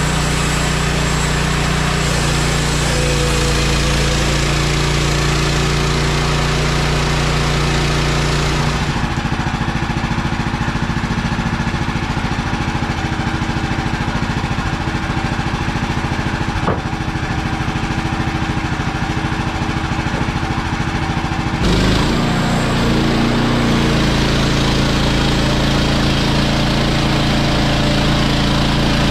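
Gasoline engine of a Woodland Mills HM130 MAX portable bandsaw mill running steadily. Its sound changes abruptly twice, about 9 seconds in and again about 22 seconds in.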